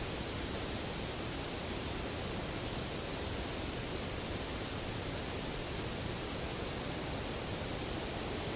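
Steady, even hiss with no knocks, calls or other distinct events standing out.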